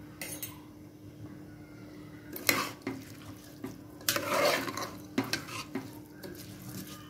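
A metal spoon stirring rice and vegetables in a pressure cooker, scraping and clinking against the pot's metal sides, with the loudest scrape about four seconds in.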